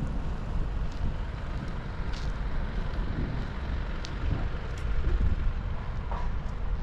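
Wind buffeting the microphone over a low outdoor rumble, with a faint steady hum and a few scattered light clicks.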